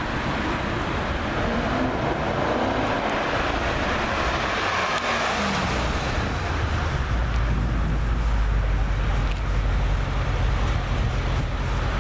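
Porsche Panamera GTS's V8 engine as the car drives past through city traffic noise, its pitch rising briefly and then falling. From about halfway it settles into a steady deep rumble as the car sits idling close by.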